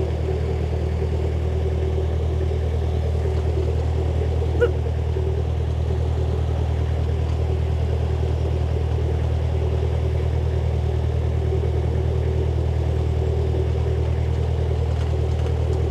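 Narrowboat engine running steadily under way, a low even drone, with a single brief click about four and a half seconds in.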